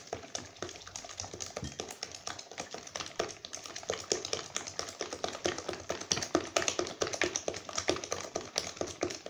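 Wire hand whisk beating eggs, sugar and oil in a plastic mixing bowl: fast, steady, rhythmic clicking and tapping of the wires against the bowl's sides.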